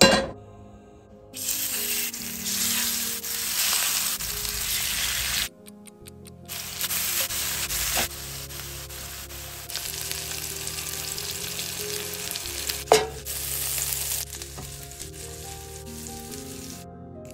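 Spiced cod fillets frying in oil in a cast-iron skillet, sizzling, broken by short cuts, with music underneath. A sharp knock comes at the very start and another about 13 seconds in.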